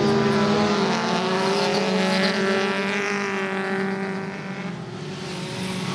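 Race cars' engines running hard on a dirt track, a steady engine note that swells about two to three seconds in and fades somewhat near the end.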